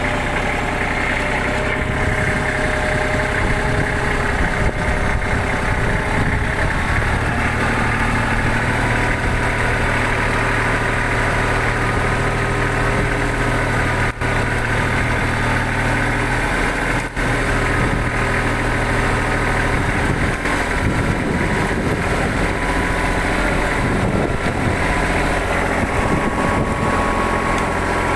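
Small tractor's engine running steadily while it pulls on a climbing rope used as a tow line; its low note grows stronger about a third of the way in and changes again about two-thirds through, with two brief dips in loudness near the middle.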